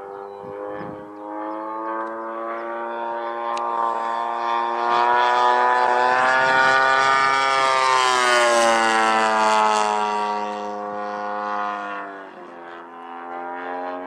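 A 1/4 scale Messerschmitt Bf 109 G model's DA-85 twin-cylinder two-stroke petrol engine and propeller making a low flyby. The engine note grows louder as it comes in, drops in pitch as the plane passes about eight seconds in, then fades away.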